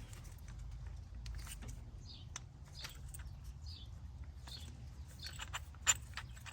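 Scattered light clicks and taps as the brake caliper and the compression tool are handled, the sharpest near the end, over a low steady hum.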